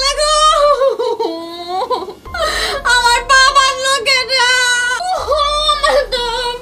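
A woman wailing and sobbing loudly in long, drawn-out cries that rise and fall in pitch, with a gasping breath between cries about two and a half seconds in.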